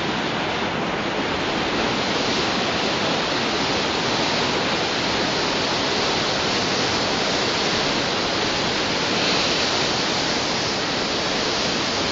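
Whitewater rapids of the Lochsa River rushing steadily.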